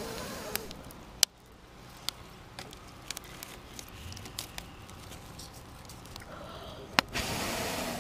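Newly lit campfire of kindling and bark crackling, with scattered sharp pops and snaps; the loudest snaps come a little over a second in and about seven seconds in. A short breathy rush of noise comes near the end.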